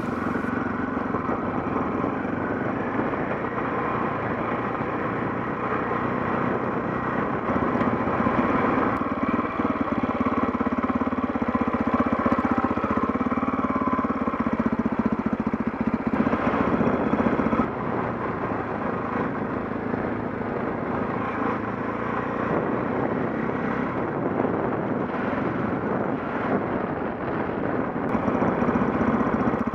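KTM 640 Adventure's single-cylinder engine running steadily while the motorcycle is ridden, with a slight drop in level about 18 seconds in.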